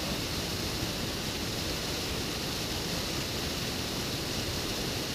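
Waterfall pouring down a rocky cascade: a steady rush of water.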